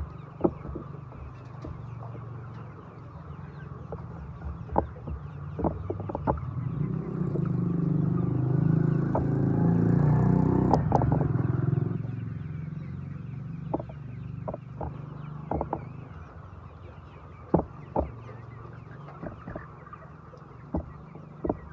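Domestic chickens clucking, with many scattered sharp taps over a steady low hum. A broad rushing noise swells up about a third of the way in and fades again past the middle.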